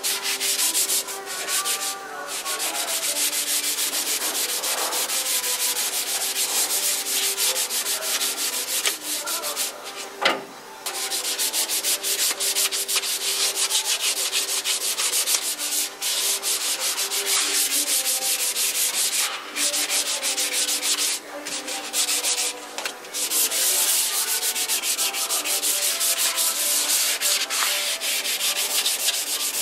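Hand sanding of a car's steel trunk lid: a grey abrasive pad scrubbed back and forth in fast, short strokes, with a few brief pauses. One sharp knock about ten seconds in.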